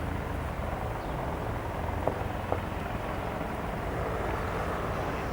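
Bell 412 twin-turboshaft helicopter running, a steady low rotor beat with a faint steady turbine whine above it. Two short clicks come about two seconds in and again half a second later.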